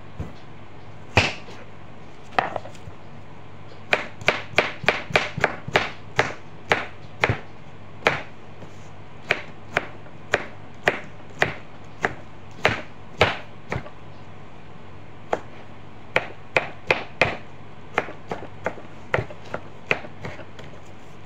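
Knife chopping a tomato on a cutting board: sharp taps of the blade hitting the board, in quick runs of several strokes with short pauses between. A faint steady low hum sits underneath.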